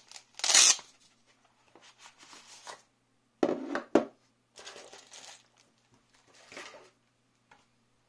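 Nylon holster being handled and the aluminium tactical flashlight pulled out of it: a bright fabric rustle about half a second in, then a louder rustle ending in a sharp knock as the flashlight is set down on the wooden table about four seconds in, followed by softer handling rustles.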